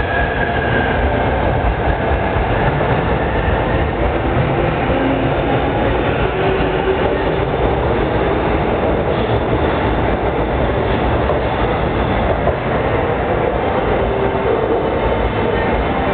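Tokaido Line electric commuter train pulling out of the platform, its motors and wheels on the track running loud and steady as the cars pass. A high squeal slides down and fades in the first second.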